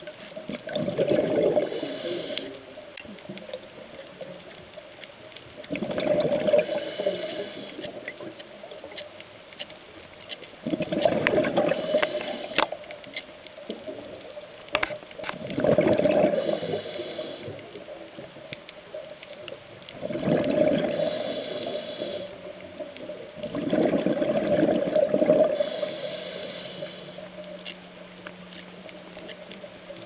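Scuba diver breathing through a regulator underwater, heard through the camera housing. There are six breaths about five seconds apart, each a two-second surge of bubbles and hiss.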